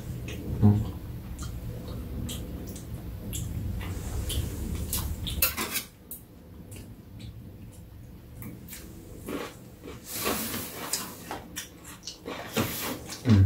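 Metal chopsticks clicking and scraping against dishes and a plastic food container on a metal tray, in scattered short clinks. A low steady hum underneath stops about six seconds in.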